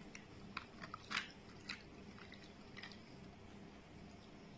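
Ice cubes in a glass faintly crackling and clicking as green tea is poured over them, with a handful of sharp ticks in the first three seconds.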